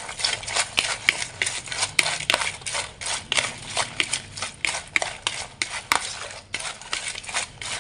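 Raw shell-on shrimp being mixed with seasonings in a plastic bowl with chopsticks: quick, irregular clicking and knocking of the sticks and shells against the bowl.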